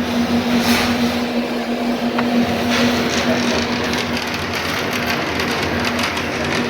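Busy self-service restaurant ambience: indistinct background voices and a few light clicks over a steady electrical hum.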